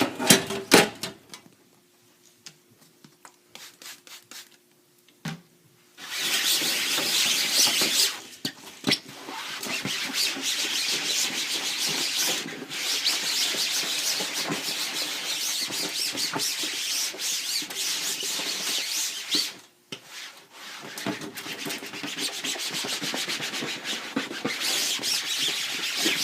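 Damp cloth scrubbing ink off the mesh of a screen-printing screen. A steady rubbing begins about six seconds in, after a quiet stretch with a few light knocks, and stops briefly once partway through.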